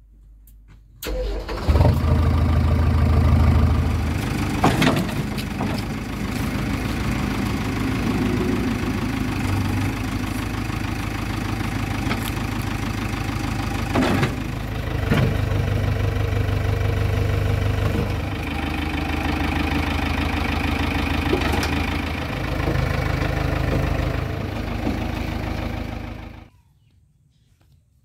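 JCB 3DX backhoe loader's diesel engine starting with the key and catching about a second in, then running, its level rising and falling as it runs. The sound cuts off suddenly near the end.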